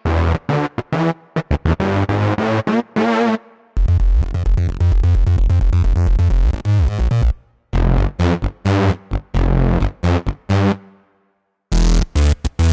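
Roland FA-06/FA-08 workstation synth bass patches played one after another as short bass riffs, with brief gaps between patches. The middle patch runs as a fast, even sequenced pattern with a clicky attack on each note.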